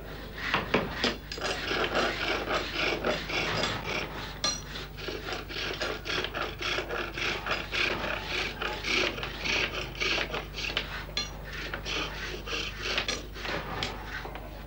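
Bow lathe turning a small wooden spindle: a chisel, steadied by the turner's foot, scrapes the wood in quick rhythmic strokes, about two or three a second, as the bow spins the work back and forth.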